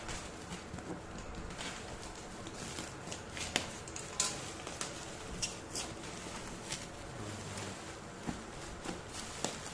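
Laptop box and its packaging being handled and opened by hand: a low rustle of cardboard and wrapping with scattered sharp clicks and taps.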